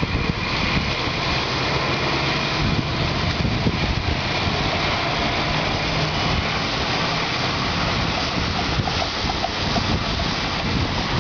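City bus engine running steadily as a bus moves slowly through the junction close by, over the hum of street traffic.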